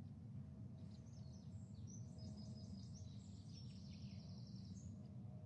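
Faint birdsong, a run of high chirps ending in a fast trill, over a steady low hum. It is typical of the recorded birdsong that Big Brother's live feed plays in place of the house audio when the sound is cut.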